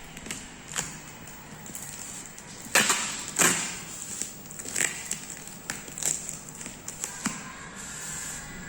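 Packaging being handled and opened: scattered clicks and taps, with two louder rustles about three seconds in.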